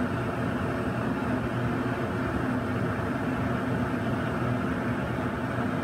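Oxygen-gas bead torch burning steadily, a constant rushing noise with a low hum under it, while glass rod is melted in the flame.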